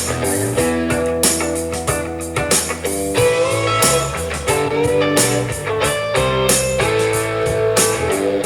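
Guitar-led blues-style music with a bass line and a lead guitar that bends its notes, played back through a Gemini WRX-843 column-array powered speaker at 50% volume and heard from about 24 feet away.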